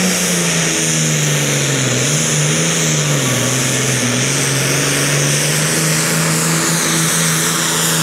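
Super Farm class pulling tractor's diesel engine running hard and loud on a pull. Its pitch sags about two seconds in and climbs back up after about four seconds.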